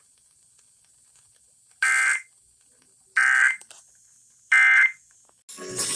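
Emergency Alert System SAME data tones: three short bursts of two-pitch digital tones, a little over a second apart, the end-of-message code that closes a flash flood warning broadcast. Near the end a rougher burst of other sound cuts in.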